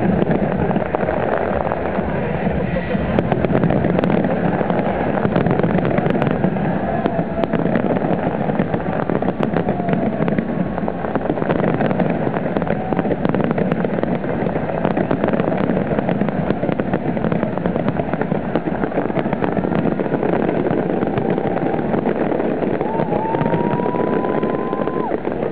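Dense, continuous barrage of aerial fireworks shells bursting, the bangs packed so closely that they run together without a break. A brief rising whistle is heard near the end.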